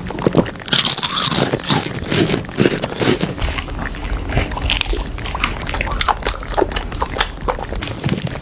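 Close-miked mouth sounds of someone eating noodle and vegetable soup: rapid wet chewing and biting clicks. A low rumble joins about three and a half seconds in.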